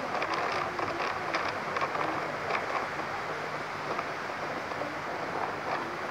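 Strong storm wind rushing through trees and banana plants: a steady rush of thrashing leaves and branches, with many quick rustling flicks from the leaves.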